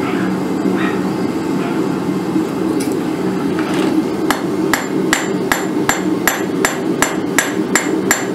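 Hand hammer drawing out the red-hot tine of a quarter-inch round-steel fork on the face of a Cavalry anvil. The blows start about four seconds in and run at an even pace of about two and a half a second, each a sharp strike with a brief ring, over a steady low roar.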